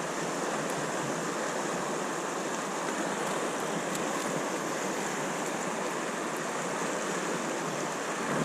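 River current rushing steadily past, a constant, even water noise.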